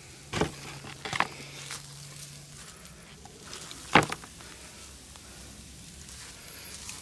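A few short knocks as grilled racks of ribs are set down on a plastic cutting board and a knife and fork work on them, the loudest about four seconds in.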